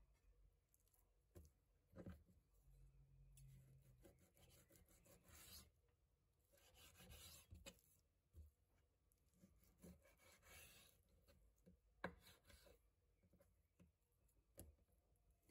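Faint sounds of a kitchen knife cutting raw boneless chicken thighs on a wooden cutting board: soft scraping strokes through the meat and a few light taps of the blade on the board.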